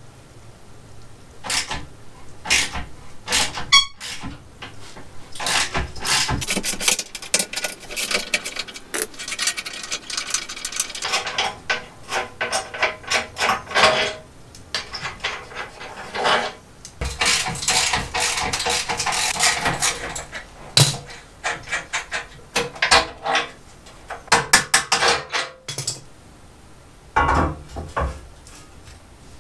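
Socket wrench with a 16 mm socket clicking in long, rapid runs as the hitch-area bolts under a BMW i3 are worked loose, with scattered metallic knocks and clanks of tools between the runs.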